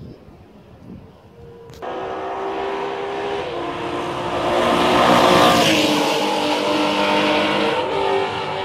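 Racing motorcycle engine at speed, coming in suddenly about two seconds in and growing louder to a peak about halfway as the bike approaches and passes, its note stepping in pitch.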